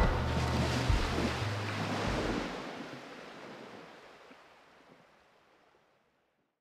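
The closing fade of an ambient track: a last few low bass notes over an even wash of noise, which dies away steadily to silence about five seconds in.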